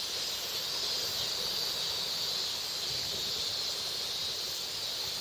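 Steady, high-pitched drone of cicadas in summer.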